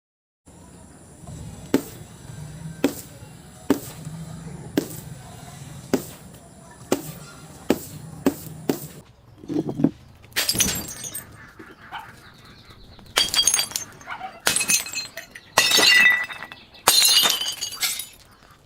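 Glass being smashed and crushed: a run of sharp knocks about once a second, then five loud crashing, crunching bursts of breaking glass in the second half.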